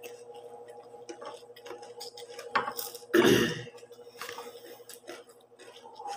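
Close-up chewing of crunchy chicharon (deep-fried pork rinds) and rice, a scatter of small crackling crunches and wet mouth sounds. About three seconds in, a sharp click and then a louder, brief rustle as a hand reaches close to the microphone to take another piece.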